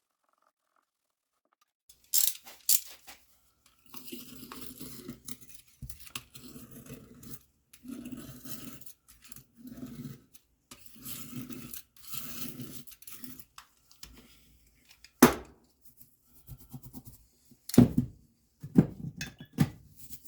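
Hand scrubbing and polishing on a bike frame: rhythmic back-and-forth rubbing strokes, about one a second, after two sharp clicks. Near the end come several sharp knocks and clacks of parts or tools being handled.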